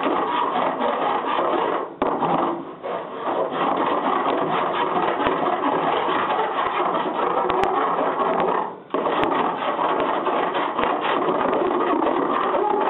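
Hand file rasping back and forth over body solder on a car body joint, steady rapid strokes with brief pauses about two seconds in and near nine seconds.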